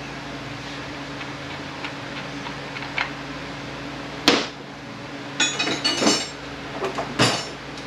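Hand tools and metal transfer-case parts clinking and clanking on a workbench during teardown: a few light ticks, a sharp clank about four seconds in, then a rattling run of clanks and one more clank near the end, over a steady low hum.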